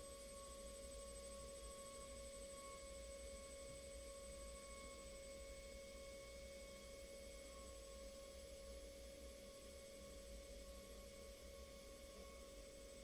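Faint, steady whine of an air turbine spindle running at about 40,000 RPM while contour milling aluminium with a small carbide ball end mill: one clear tone with fainter higher tones above it, wavering slightly in pitch.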